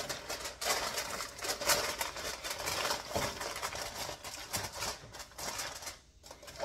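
Aluminium foil crinkling and rustling, a rapid irregular run of small crackles as it is pressed and crimped down over a baking dish.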